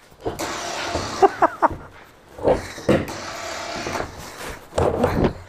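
Rhino 4500 lb 12 V electric winch running, reeling in its cable under load as it drags a person sitting on a caster dolly across a wooden trailer bed, the casters scraping and sticking instead of rolling. A few louder knocks and scrapes come partway through and near the end.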